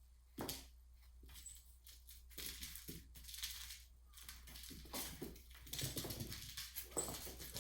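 Irregular scratchy rustling, scraping and light rattling that grows busier and louder toward the end: a cat scrabbling and pouncing after a toy mouse.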